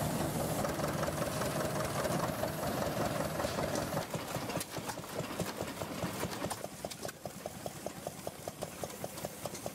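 Vintage baling machine working: steady machinery running, then from about four seconds in a fast, regular clacking of about five strokes a second.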